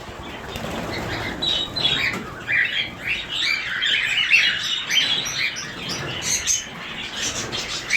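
A group of cockatiels chirping and calling, many short overlapping chirps throughout.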